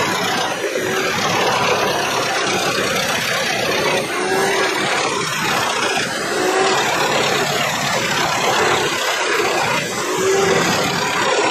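Truck-mounted wood chipper running under load as logs are fed in by its crane: steady, loud engine and chipping noise, with a few brief faint whines from the crane hydraulics.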